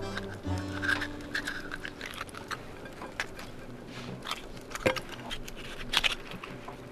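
A metal utensil scraping and prying fresh abalone out of its shell: irregular small clicks and wet scrapes, with a sharper click about five seconds in and another about a second later.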